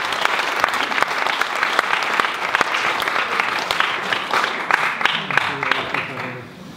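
A small audience applauding, the clapping dying away over the last second or so, with a few voices under it near the end.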